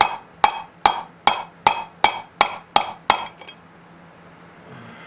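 Nine evenly spaced hammer strikes, about two and a half a second, each with a short metallic ring, stopping about three seconds in: tapping a bearing out of the torch-heated case of a Vittorazi Moster 185 paramotor engine.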